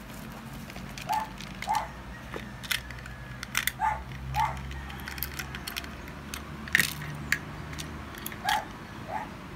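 Irregular clicks and rattles of a small clear plastic parts box being opened and its small parts handled, with the sharpest tap about seven seconds in. A dog barks faintly and repeatedly in the background.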